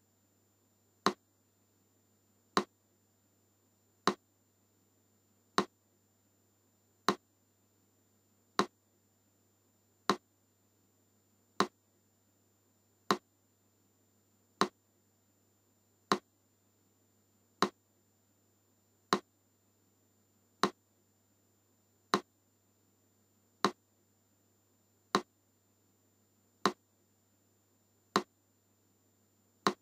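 Metronome clicking slowly and evenly, one sharp click about every second and a half (about 40 beats a minute), with near silence between clicks.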